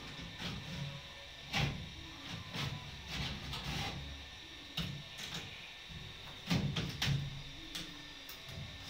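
Gypsum board being handled and pushed into a false-ceiling opening: irregular rubbing and scraping with a few sharp knocks, the loudest about one and a half seconds in and again around six and a half to seven seconds.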